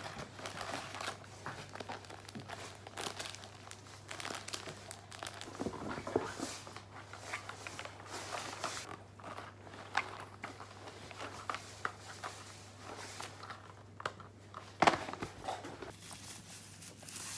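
Crinkling and rustling of packaging: packets, a cardboard box and a paper shopping bag handled in short, irregular crackles, with one sharper knock of handling about fifteen seconds in.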